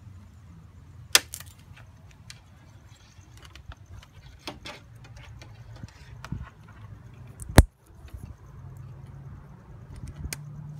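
Scattered clicks and rattles of hands handling test wires and a battery terminal, with a loud sharp click a little over a second in and a louder one about seven and a half seconds in, over a steady low hum.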